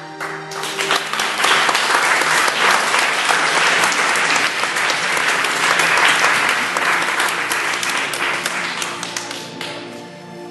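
Audience applauding, starting just after a piece of music ends and dying away near the end, with soft music still playing underneath.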